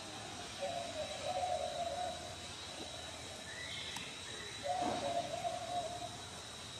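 Two long, steady hoot-like animal calls, the first about two seconds long near the start and the second shorter about two-thirds of the way through, over a faint steady high-pitched tone.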